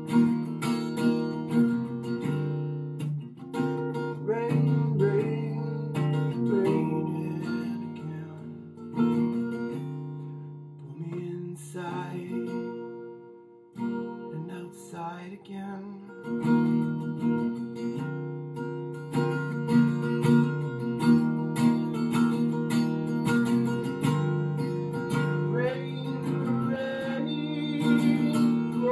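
Acoustic guitar strummed in steady chords, with a man singing at times. About halfway through the playing thins out and nearly stops for a moment, then picks back up.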